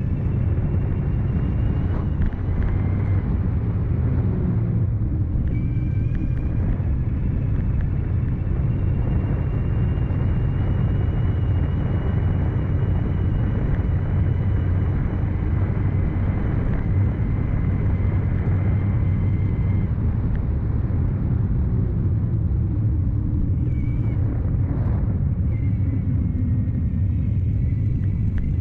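CYC X1 Stealth Gen3 mid-drive e-bike motor running while riding, a thin high whine over a steady low rumble of riding. The whine shifts pitch and fades briefly about five seconds in and again near the end.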